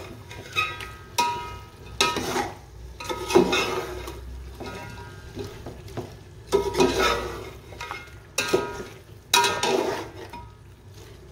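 A metal spatula scraping and knocking against a large aluminium pot as beef pieces are stirred and fried with spices, in irregular strokes about a second apart, several leaving a short metallic ring. Beneath them is a low sizzle of the meat frying in a little water.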